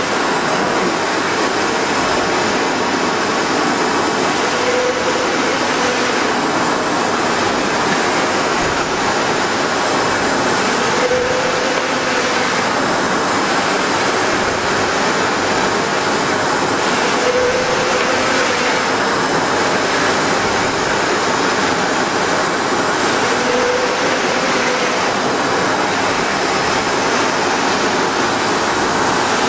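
Large flatbed UV printer running: a loud, steady rush of machine noise as the print carriage shuttles across the bed. A faint hum comes back about every six seconds.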